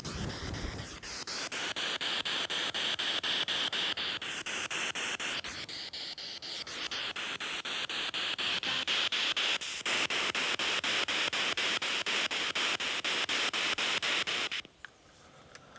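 SP7 spirit box sweeping through radio stations: a steady hiss of static, stepping and chopping several times a second as it scans, until it is switched off suddenly near the end.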